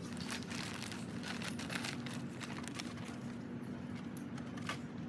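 Packaging of a new RC car being handled and unwrapped: irregular crinkling and rustling, over a steady low hum.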